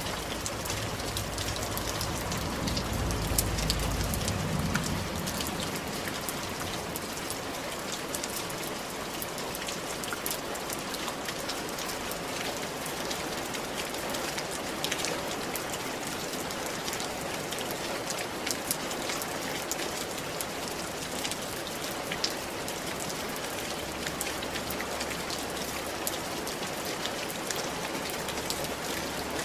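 Steady rain falling on roof tiles, a dense even patter with many separate drops ticking. A brief low rumble comes a few seconds in.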